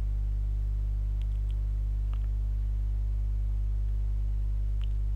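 A steady low electrical hum with several evenly spaced overtones, like mains hum in the recording, with a few faint ticks.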